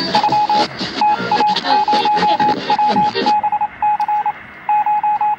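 Electronic beeping: short beeps at one pitch in quick groups of about four, repeating over and over. Other sound is mixed in over the first three seconds or so, after which a fainter, higher beep sounds alongside.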